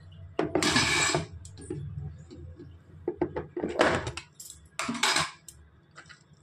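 Kitchen clatter of a steel bowl and utensils knocking and scraping against an aluminium pressure cooker as sliced tomatoes are tipped in: three main bursts, the first lasting nearly a second, with short clinks between.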